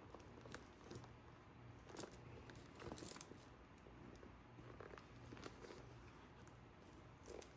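Near silence with room tone and faint handling noises: a few soft, scattered clicks and rustles, the loudest a cluster about three seconds in.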